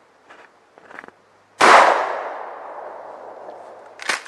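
A 20-gauge pump-action shotgun fires one shot about a second and a half in; the blast echoes and fades away over a couple of seconds. Near the end come two sharp metallic clacks, typical of the slide being racked back and forward to chamber the next shell.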